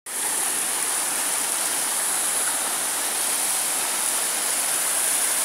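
Waterfall pouring over granite rocks into a pool: a steady, even rush of falling water.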